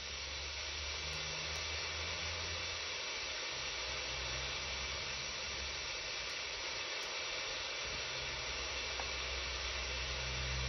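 Steady hiss of radio static from a KiwiSDR shortwave receiver's audio as it is tuned across the 26 MHz band, with a low hum that drops out and comes back a few times.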